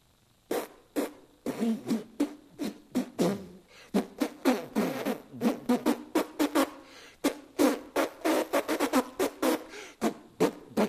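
A man's voice making rapid nonsense vocal noises as dada sound poetry: clicks, pops and short squeaky sounds that slide up and down in pitch, in quick succession. It starts about half a second in.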